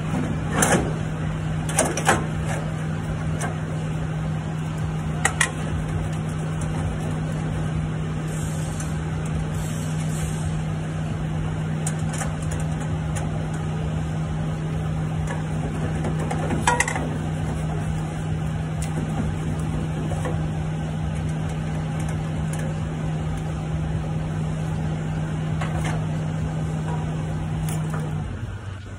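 A steady machine hum runs and cuts off near the end. Over it come a few sharp metal clanks and knocks as an exhaust aftertreatment canister and its band clamp are worked into place.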